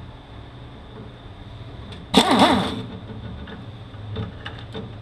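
A hand-held power tool runs in one short burst about two seconds in, its pitch rising and falling as it spins up and down, followed by a few light metallic clicks.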